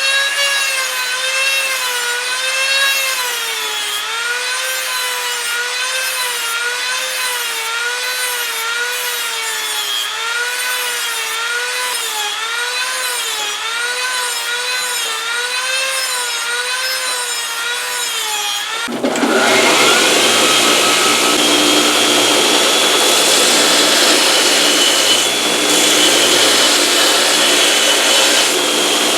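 High-speed rotary tool whining as it grinds steel, its pitch dipping and recovering over and over as it is pressed in and eased off. About nineteen seconds in it gives way abruptly to the louder, rougher, steady rushing of a belt grinder.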